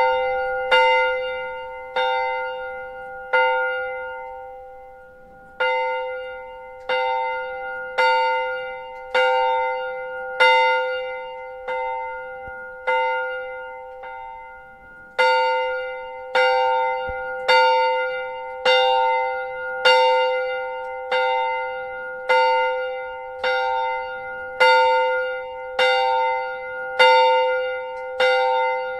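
A single church bell rung by hand from a pull rope, striking about once a second on the same note, each stroke ringing on into the next. The rhythm breaks briefly twice, about four seconds in and about fourteen seconds in.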